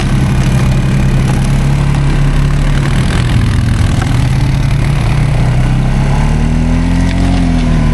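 ATV engine running steadily at low speed, its pitch rising briefly and falling again near the end.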